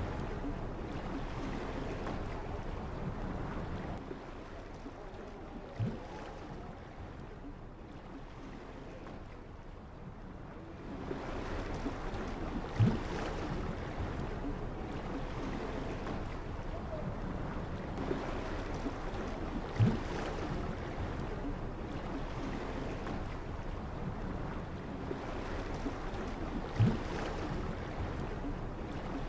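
Sea and wind noise at night on open water, with a short low thump about every seven seconds, four in all. The noise eases a few seconds in and rises again near the middle.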